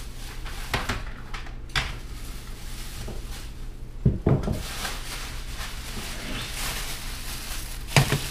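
Things being handled and set down on a kitchen counter: a few knocks and clatters, the loudest about four seconds in and again near the end, amid the rustle of a plastic shopping bag.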